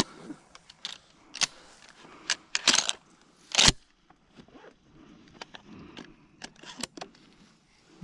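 A string of sharp clicks and knocks over a light rustle, the loudest a little after three and a half seconds in: a shotgun being handled as the hunter moves through dry grass.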